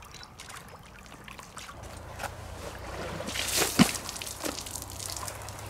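Water trickling, then a louder splash of water pouring out of upturned chest waders onto the ground about three and a half seconds in, with one sharp knock in the middle of it.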